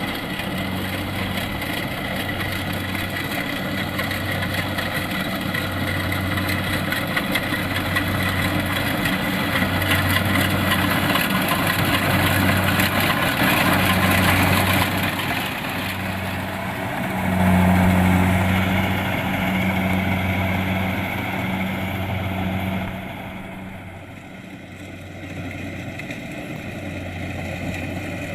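Kubota DC-70 Plus combine harvester running while it harvests rice: steady engine and threshing noise over a low hum that swells about once a second. It grows louder toward the middle, then drops away sharply a few seconds before the end.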